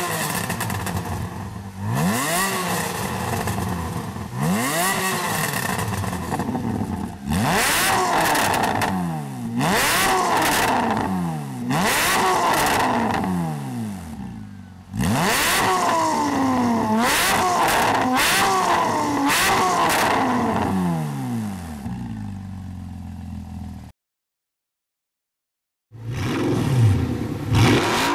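Porsche Cayman S flat-six breathing through an Armytrix cat-back exhaust, sports cats and headers, revved hard over and over: engine speed climbs and falls back in repeated blips, some in quick succession. The sound breaks off for about two seconds near the end, then an Audi R8 begins revving.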